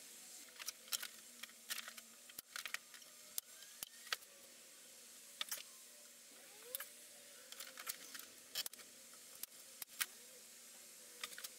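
Faint, irregular light clicks and taps of thin pine strips and a small OSB offcut being handled and fitted against the edge of an MDF bench top.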